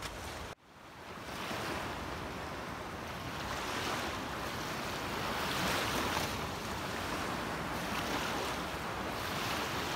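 Small sea waves breaking and washing onto a sandy beach, the surf swelling and easing every few seconds, with wind blowing on the microphone. The sound drops out for a moment just after the start.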